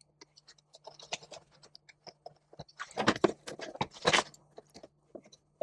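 Hands handling a litter box's plastic housing and its sensor wiring: scattered small clicks, rustles and scrapes, with louder bursts of handling about three and four seconds in.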